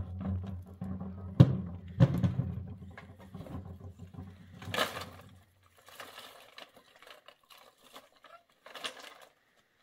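Knocks, taps and rustling of things being handled and set down, over a low rumble that stops about halfway through.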